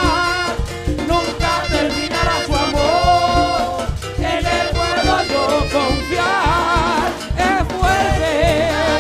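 Live worship song from a church choir and band: voices hold long, wavering notes over a steady beat of drums and bass.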